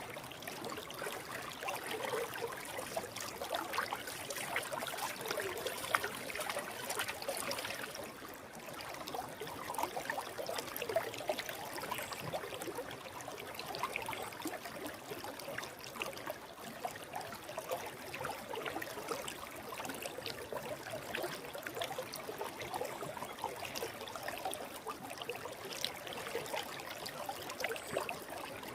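Forest stream flowing steadily: a continuous, even rush of water, with a brief dip in level about eight seconds in.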